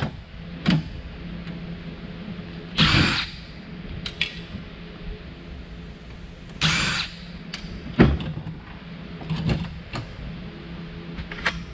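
Cordless DeWalt impact driver running in two short bursts, about three seconds in and again near seven seconds, driving out screws from a server chassis's front-panel handles. Sharp metal clacks of parts being handled fall in between, the loudest about eight seconds in.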